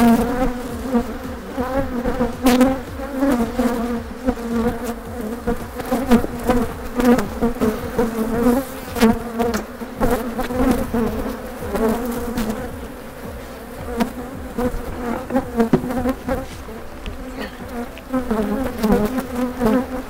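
Many honey bees buzzing close around the microphone, a dense drone whose pitch keeps wavering. The bees are agitated from having their hive opened, with a couple of light knocks in the buzz.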